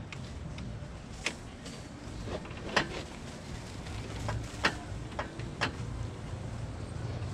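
Irregular sharp metallic clicks and clinks of hand tools, about half a dozen, while a lock nut and threaded ball stud on a clutch arm's pivot are worked off. A low steady hum runs underneath.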